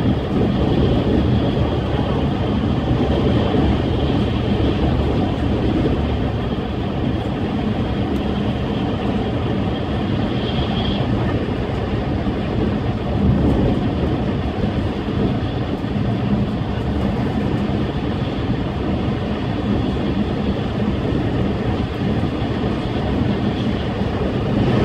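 Inside the carriage of a Tohoku Shinkansen bullet train running at high speed: a steady, loud low rumble of the train on the line. A faint high tone rises above it briefly about ten seconds in.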